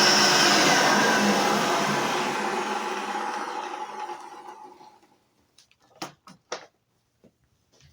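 Hoover Elite vacuum cleaner motor running, then fading away over about five seconds as it winds down after being switched off. A few short clicks follow near the end.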